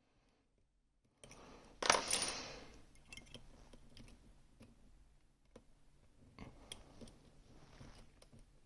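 A small metal object clatters onto a hard surface with a short ringing decay, followed by light metallic clicks and a second, softer clatter.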